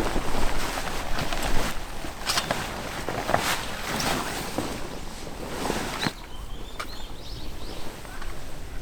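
Irregular rustling and knocking handling noises, busiest in the first six seconds and quieter after.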